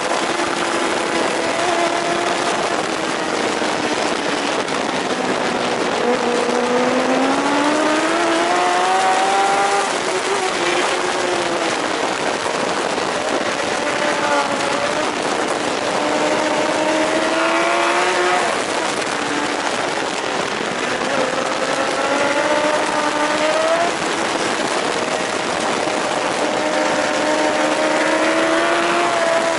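Racing superbike engine heard from the bike itself at race speed, its pitch climbing hard as it accelerates out of corners and dropping away under braking, several times over. Heavy wind rush on the microphone runs under the engine.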